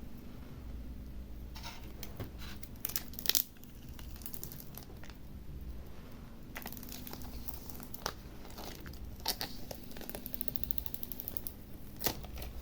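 Scattered light clicks, taps and brief crinkling from hands handling tablet parts during reassembly, over a steady low hum.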